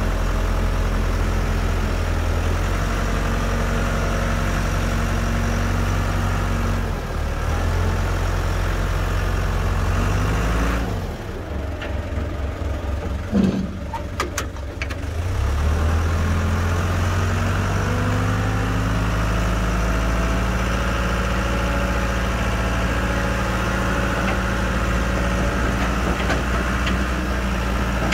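Old forklift's engine running steadily as the machine drives. About eleven seconds in it drops to a slow, uneven idle, with a couple of sharp clicks. It speeds up again around sixteen seconds.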